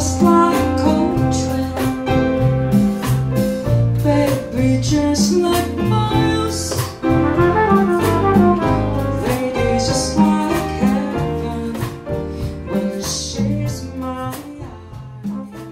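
Live Latin jazz band playing, with trumpet, congas, drum kit and piano, and a woman singing. The music gets gradually quieter toward the end.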